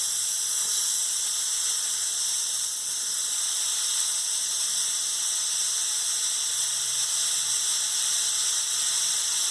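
Compressed air blowing in a steady hiss from an air blow-gun nozzle connected directly to the compressor. The hiss holds an even strength throughout, showing full pressure sustained once the old 100-foot hose is bypassed; that hose was the cause of the pressure loss.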